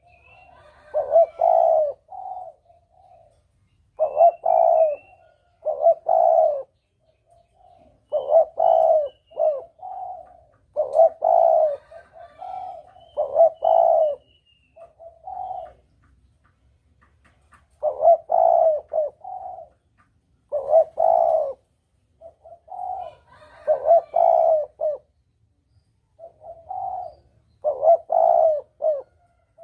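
Spotted dove (tekukur) cooing: phrases of several low coo notes repeated every few seconds, the bird's call used as a lure for hunting doves.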